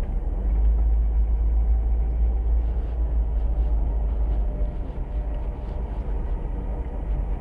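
Steady low rumble, without distinct events.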